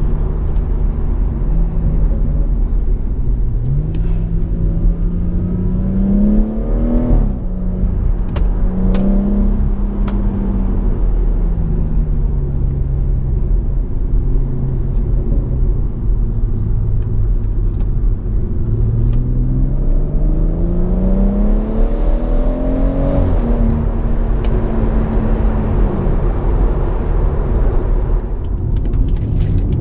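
BMW M140i's turbocharged 3.0-litre straight-six running through an M Performance exhaust, heard from inside the cabin. The engine note climbs under acceleration and drops sharply at an upshift about seven seconds in, then settles and falls back to a low cruise. It climbs again to a second upshift about twenty-three seconds in, over a steady low road rumble.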